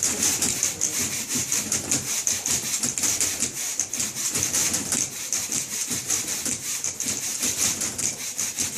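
Several manual typewriters typed together in a steady rhythm, a dense clatter of key strikes many times a second.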